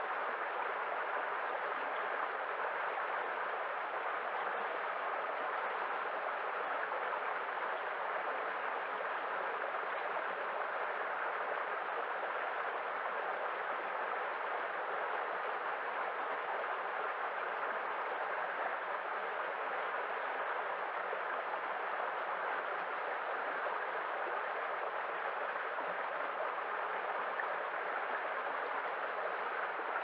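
Small rocky stream running over a low cascade, a steady, unbroken rush of water.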